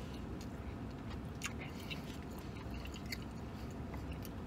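A man chewing a mouthful of sandwich, with scattered small wet mouth clicks, over a steady low hum.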